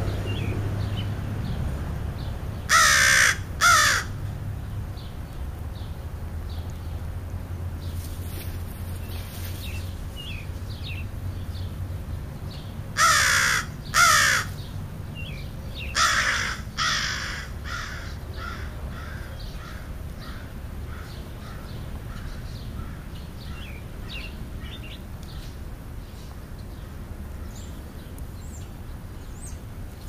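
Crow cawing in three pairs of loud, harsh caws, each pair about a second apart, with small birds chirping faintly in the background.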